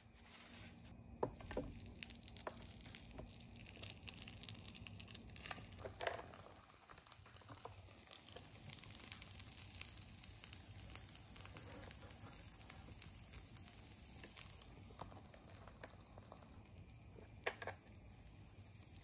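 Faint rustling, scraping and small taps as a paper towel is wiped over electric waffle maker plates and a sticky rice cake mixture is spread onto them. A sharp clack about 17 seconds in as the plastic lid is shut.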